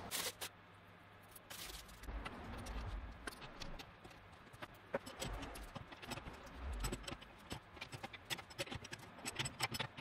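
Aluminium foil crinkling as it is pulled off, then scattered metal clicks and scrapes of clamps, bolts and a wrench, coming thicker near the end, as an ISO 60 flange is fitted back onto a turbomolecular pump.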